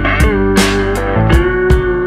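Background music: a guitar melody with sustained and sliding notes over a steady drum beat.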